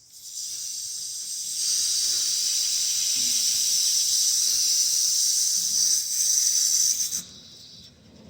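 Water hissing through a household main water shut-off valve as it is opened counterclockwise, getting louder about two seconds in and dropping off sharply about seven seconds in.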